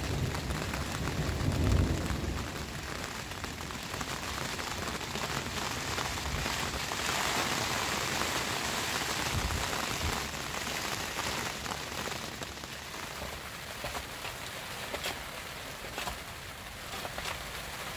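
Rain falling steadily, heavier through the middle, then thinning so that separate drops tick sharply near the end. A low rumble sounds in the first two seconds.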